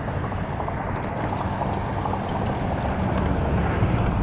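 Steady wind noise buffeting the microphone, a low rumbling rush with the sea faintly beneath it.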